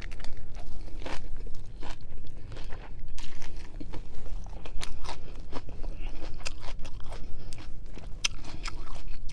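A person biting into and chewing a romaine lettuce wrap, with many short, crisp crunches of the lettuce leaves.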